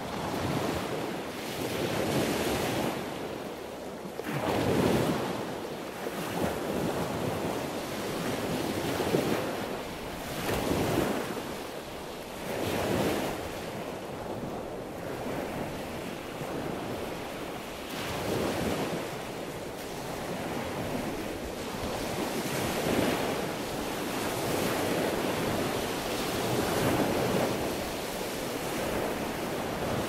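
Sea waves rushing and breaking in a steady wash of surf, swelling and ebbing every few seconds.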